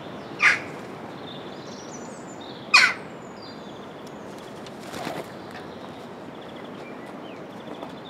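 Jackdaws calling: two short, loud calls about half a second and nearly three seconds in, and a fainter one around five seconds.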